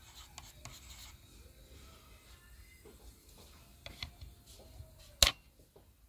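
A pen tip scraping and pressing on a 27C256 EPROM chip in an EPROM programmer's ZIF socket, with small plastic clicks and rubbing, then one sharp, loud click near the end as the ZIF socket lever is flipped.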